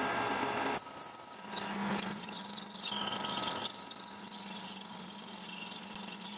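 Metal lathe running with a steady motor hum while a twist drill cuts into a steel bar, giving a high-pitched, wavering squeal that starts abruptly about a second in.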